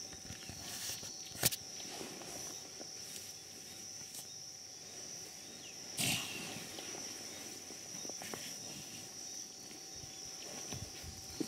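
Black rhino calf moving about and playing in sawdust, with a sharp click about a second and a half in and one short, loud noisy burst about six seconds in. A steady high-pitched drone runs underneath.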